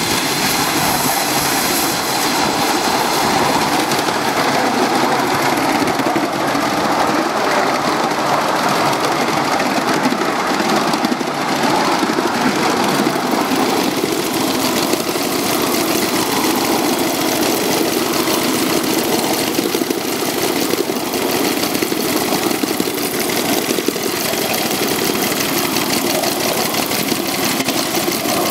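Live steam scale model of East Tennessee & Western North Carolina Railroad locomotive #12 running at speed, heard from on board: a steady, loud running noise of the working engine and its wheels on the rails.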